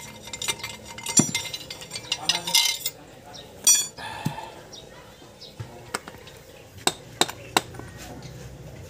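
Metal steering-rack parts clinking and clattering as they are handled and set down: a busy run of clinks, a short rattle just before four seconds in, then a few single sharp clicks.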